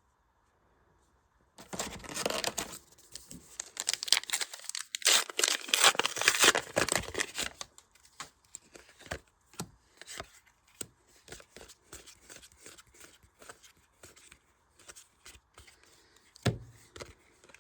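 A Star Wars: Unlimited booster pack's foil wrapper being torn open and crinkled for several seconds, starting about a second and a half in. After that comes a long run of small clicks and flicks as the trading cards are handled.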